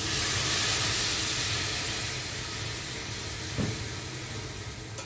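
White wine poured into a hot saucepan of frying seafood, hissing and sizzling hard as it hits the hot pan, then slowly dying down to a gentler sizzle.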